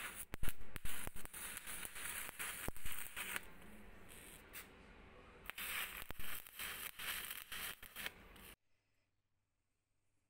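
Stick arc welding on the crank gear wheel of a breast drill to build up its broken teeth: a crackling, spitting arc with sharp pops. It runs in two stretches with a lull a little past three seconds in, then cuts off suddenly about eight and a half seconds in, leaving near silence.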